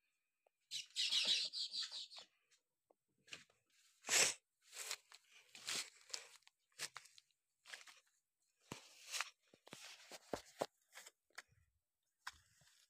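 Footsteps and brushing through dry weeds and twigs: a run of irregular rustles and crunches, the loudest about four seconds in.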